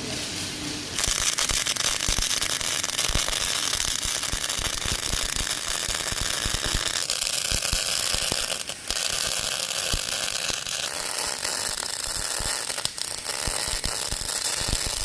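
Electric arc welding: the arc strikes about a second in and crackles and sputters steadily with sharp pops, breaking briefly twice.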